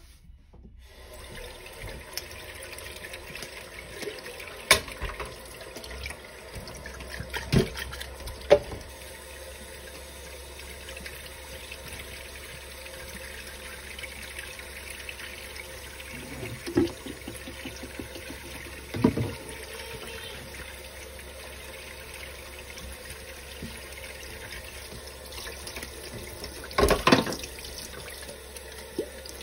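Kitchen faucet turned on about a second in, water running steadily into a stainless steel sink full of dishes, with a few sharp knocks as dishes are moved about, the loudest cluster near the end.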